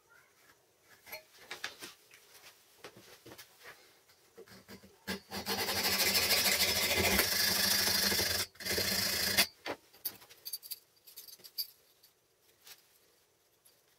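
Fine-toothed hand saw blade cutting through a thin steel strip held in a vise: a loud, rasping run of quick strokes lasting about four seconds, broken once briefly near the end. Light taps and clicks of handling the strip come before and after.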